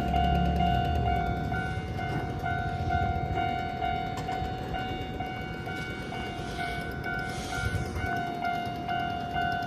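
Japanese level-crossing warning bell ringing in steady, evenly repeated electronic dings, about two a second, while a Keikyu train rumbles past.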